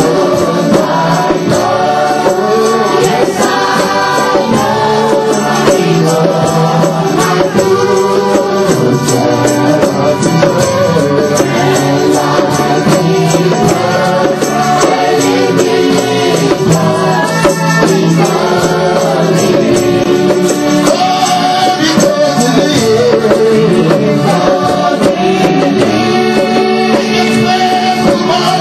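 Church worship music: voices singing over instrumental backing with percussion, loud and steady throughout.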